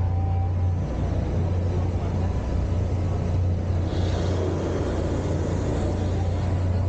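Steady low hum and rumble of the Liberty Square riverboat's machinery as the boat cruises, with no speech over it.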